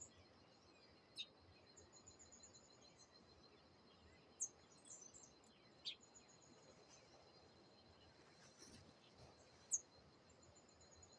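Faint wild birdsong: a few short, sharp falling chirps and some rapid high trills, over a steady high pulsing trill from insects.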